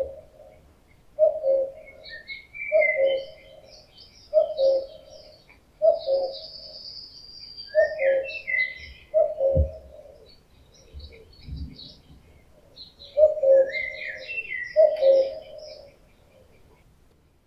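Male common cuckoo giving its two-note 'cu-koo' breeding-season call over and over, about nine times, with a short pause partway through. Smaller songbirds chirp at a higher pitch behind it.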